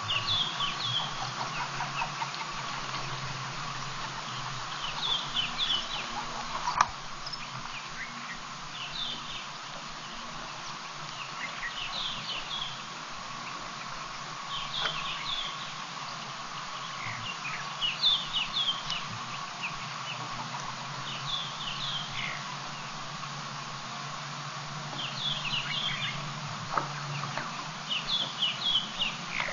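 Birds calling in the bush: short clusters of high chirping notes, repeated every few seconds, over a steady hum. A single sharp click comes about seven seconds in.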